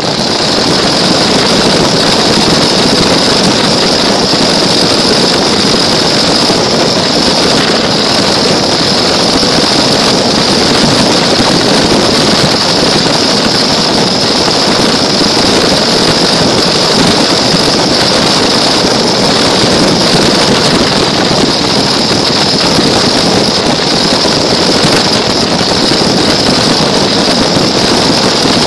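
Small toy car's electric motor and gears running, heard up close from a camera mounted on the car: a loud, steady whir with a high whine that starts abruptly and holds without change.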